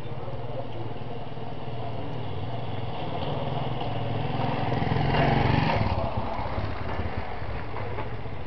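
A small engine running steadily, swelling to its loudest about five seconds in and then falling back, like a motor vehicle passing.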